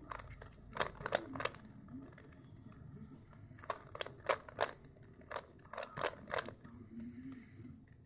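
Plastic Rubik's cube being turned by hand, its layers clicking and clacking in quick runs of turns with short pauses between.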